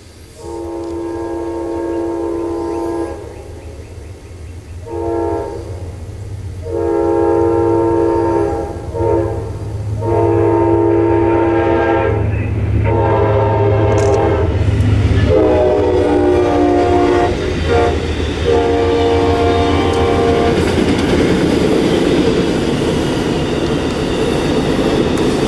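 Amtrak passenger train's horn blowing a series of long and short blasts over the low diesel rumble as the locomotive approaches and passes, the horn's pitch dropping as it goes by. Then a steady rush and wheel clatter of the passenger cars rolling past.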